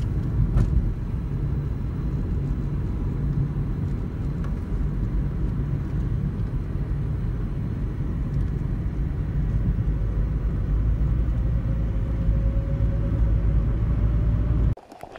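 Inside a moving car's cabin: a steady low rumble of engine and road noise while driving. It cuts off abruptly near the end.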